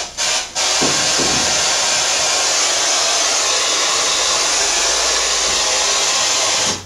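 Spirit box radio scanner giving out a steady hiss of loud static as it sweeps through radio channels. It dips out twice within the first half second and cuts off suddenly near the end.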